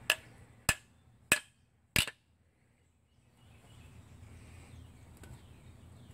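Four sharp hammer blows on metal, about two-thirds of a second apart, driving a ribbed wheel stud into its hole in the brake drum or hub.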